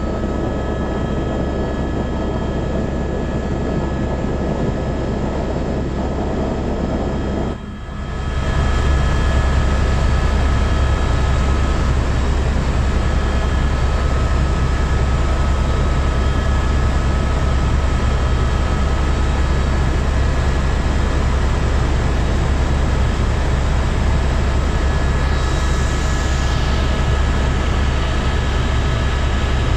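Helicopter turbine engine and rotor running steadily in cruise flight, heard inside the cabin: a heavy low drone with a steady high whine on top. The sound dips briefly about eight seconds in, then carries on a little louder.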